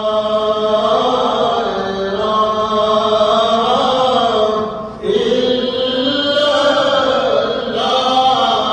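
A man's voice chanting Sufi zikr in long, drawn-out sung phrases, with a short breath break about five seconds in.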